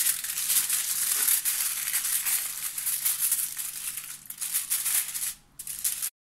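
Aluminium foil crinkling and crackling as hands press and crimp it over the rim of a baking dish. It cuts off suddenly near the end.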